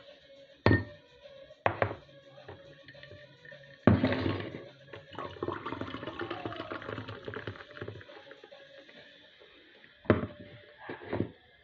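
Sprite poured from a can into a glass of juice and ice: the stream splashes and fizzes for about four seconds, starting about four seconds in. Sharp knocks as the can is handled near the start and set down near the end, over background music.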